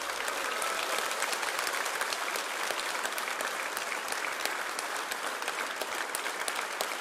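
Large seated audience applauding: dense, even clapping that holds steady.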